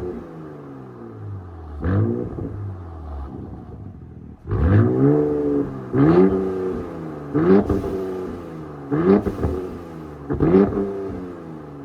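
Car engine through an aftermarket performance exhaust, free-revved in park. It settles to idle with a short blip, then is blipped hard five times about a second and a half apart, each rev rising sharply and dropping back. The exhaust is loud enough to measure about 115.7 decibels.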